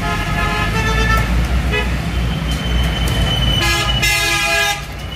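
Vehicle horns honking over a steady low rumble of traffic, with a longer, louder horn blast about four seconds in.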